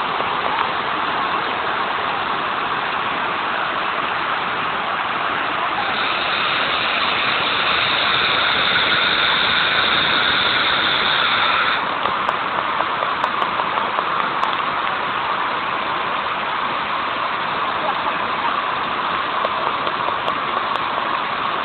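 Waterfall rushing in a steady roar of falling water, growing louder and brighter from about six seconds in, then dropping back suddenly about twelve seconds in.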